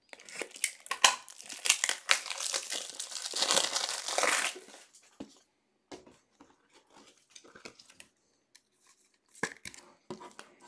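Plastic wrapper of a trading-card pack being torn and crinkled for about four and a half seconds. After that come scattered light clicks and taps of cards being handled, a little louder twice near the end.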